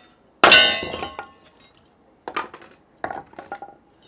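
A steel hammer-poll axe (Estwing Fireside Friend) strikes a log down onto a cast-iron Kindling Cracker splitting wedge once, about half a second in, with a metallic ring that dies away over about a second as the log splits through. Two clusters of lighter clinks and knocks follow, near the middle and near the end.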